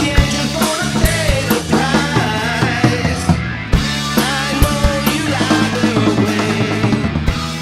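Rock music with a drum kit and a singing voice.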